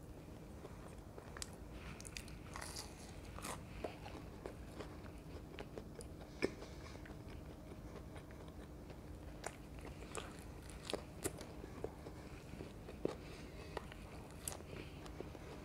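Close-miked biting and chewing of crispy fried pakoras (gram-flour batter fritters): irregular sharp crunches and mouth clicks, the sharpest about six seconds in, over a faint steady hum.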